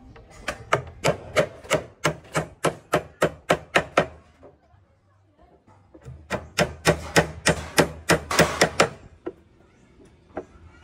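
A hand tool worked rapidly against a wooden plank: sharp wooden strokes about three to four a second in two runs, with a pause of about two seconds between them and a few scattered clicks near the end.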